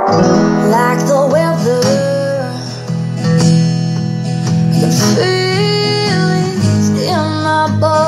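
Music: a small-bodied acoustic guitar played along with a full recorded track that has a sustained bass and a sliding melody line above it.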